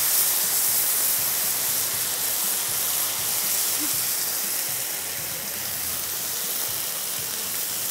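Hot sizzler platter sizzling steadily under a pepper prawn stir-fry in thickened sauce, a constant hiss that eases slightly in the second half.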